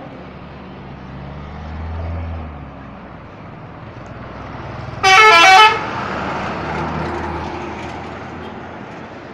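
Telolet musical horn on an Indonesian intercity bus, sounding a quick run of stepping notes for under a second about five seconds in, over the low rumble of a bus engine.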